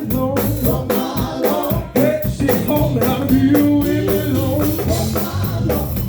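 Gospel band performing: a sung melody over drums, bass guitar and electric guitar, with a steady beat.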